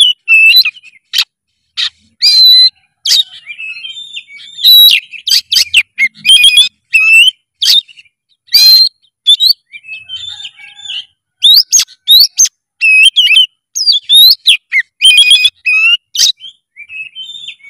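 Oriental magpie-robin (kacer) in full song: loud whistled phrases that glide up and down, mixed with sharp chirps and short rasping notes, delivered in quick runs separated by brief pauses.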